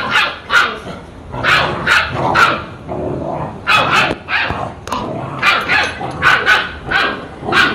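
Rajapalayam puppy barking in a quick series of short, high-pitched barks, about fourteen in all, coming in groups of two or three.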